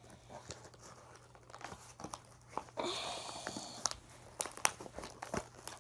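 Hands working at toy packaging: crinkling and scattered small clicks, with a short rustling tear about three seconds in, as a box that won't open is wrestled with.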